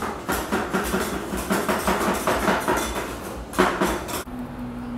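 Busy clatter and clinking of metal utensils and dishes, many quick knocks in a row, stopping abruptly about four seconds in.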